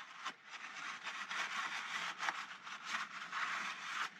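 A brush scrubbing brake parts clean, with rapid, irregular scraping strokes.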